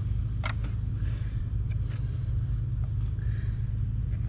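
Small screwdriver prying and clicking at the plastic fuel-line clips on a diesel fuel filter: one sharp click about half a second in, then a few fainter ones. A steady low rumble runs underneath.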